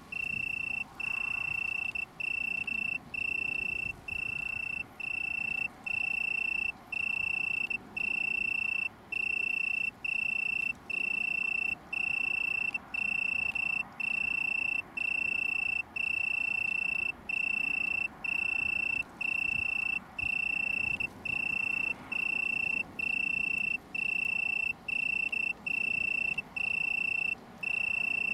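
Male Italian tree cricket (Oecanthus pellucens) singing its calling song: a steady, pure-pitched trill repeated in bursts just under a second long, with short breaks between them.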